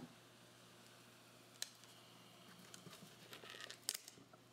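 Faint clicks and rubbing of a rubber balloon being handled and stretched over the neck of a plastic bottle, with a cluster of sharper clicks near the end, over a low steady hum.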